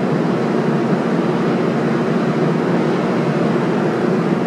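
R46 subway train pulling out of the station and running off into the tunnel, a steady rumble of wheels on rail.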